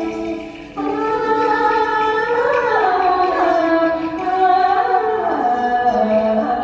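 Traditional Vietnamese music accompanying a water puppet show: a voice singing a line that slides in pitch over held instrumental notes, starting again after a short break about a second in.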